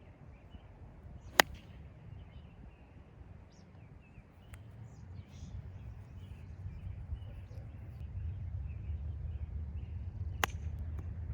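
Two sharp clicks of a hickory-shafted golf club striking a ball, a loud one about a second in and a fainter one near the end. Under them runs a steady low rumble that grows louder halfway through, with faint bird chirps.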